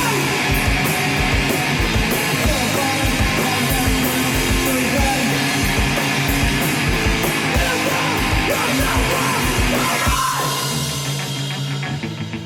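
Loud live rock band playing distorted electric guitars over a fast drum beat. About ten seconds in, the drums stop and a held guitar chord rings on.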